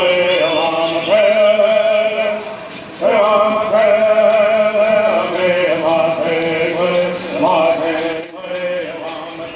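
A group of men singing a Southern California Native American bird song together in repeated chanted phrases, with rattles shaken in a steady beat of about four strokes a second.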